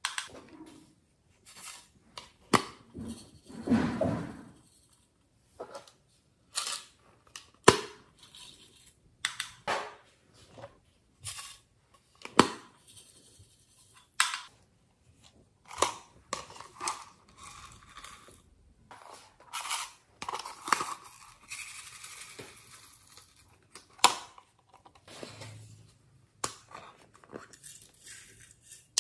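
Small clear plastic containers handled and tapped as loose sequin glitter is shaken out onto a tray of slime: a string of separate clicks, taps and short rustles.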